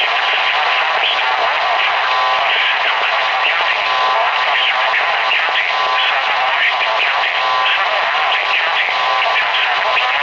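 Weather radio broadcast heard through heavy static hiss, with a voice underneath that is too buried to make out.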